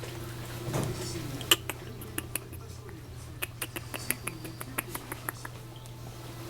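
Miniature dachshund puppies squeaking faintly, with a dozen or so scattered sharp clicks and taps, the loudest about a second and a half in, over a steady low hum.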